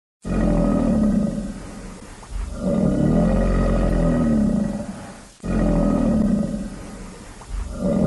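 A large animal roaring: three long, deep calls, each rising and then falling in pitch. The sound cuts off abruptly at the end.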